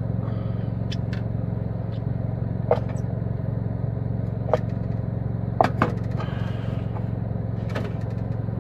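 Scattered clicks and light knocks of a rice cooker's inner pot, housing and utensils being handled, over a steady low hum. The loudest knocks come about two thirds of the way through and near the end, as the rice cooker housing is picked up.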